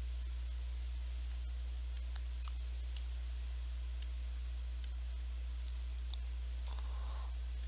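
Steady low electrical hum, with two faint clicks, one about two seconds in and one about six seconds in.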